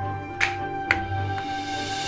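Gentle instrumental background music with held tones and light percussive accents.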